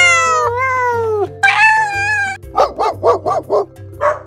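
A cat's long meow trails off about a second in, then a high held cry and a quick run of yapping dog barks, about four a second, over background music with a steady bass line.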